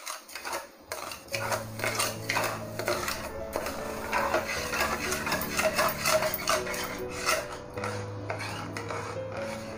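Silicone spatula stirring sugar and water in a pan, with irregular scraping strokes against the pan, over soft background music.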